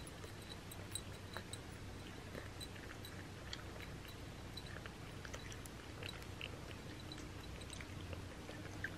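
Cat eating dry kibble from a small dish: faint, irregular clicks and crunches of chewing.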